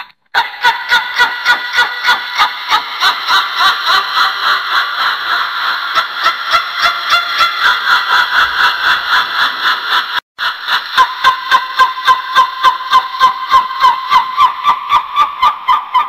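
Witch's cackle: a shrill voice laughing in rapid 'ha-ha' pulses, about five a second, run together in one long stream, with a brief break about ten seconds in.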